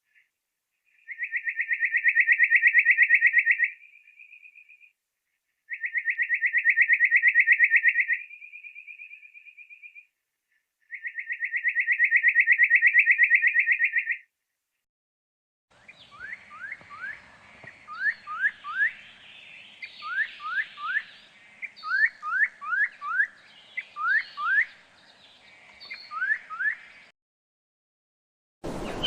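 Nuthatch calls slowed down to about half speed. First come three long, fast rattling trills, a few seconds each with short pauses between. Then, over a background hiss, short rising notes come in quick twos and threes.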